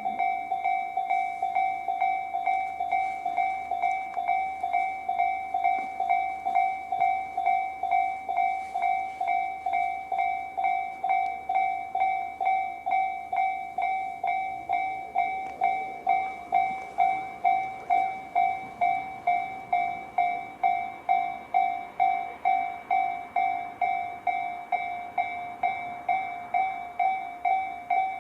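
Japanese level-crossing electronic warning bell (Tobu Railway's 'sound C' type) ringing on and on at about two strikes a second. Midway a Tobu 20400-series train passes, its running noise swelling and fading under the bell.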